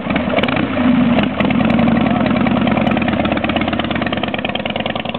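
Harley-Davidson motorcycle's V-twin engine running, revved up twice, then pulling away and growing a little fainter as the bike rides off.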